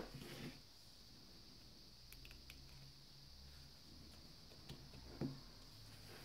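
A few small clicks and taps from a metal SIM card tray being handled and pushed into a Samsung Galaxy S7 edge, with a sharper click at the start and another about five seconds in, over a faint steady hum.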